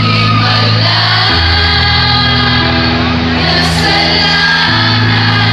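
Live pop-rock band playing loudly through a PA: electric guitars and keyboard over sustained bass notes, with singing.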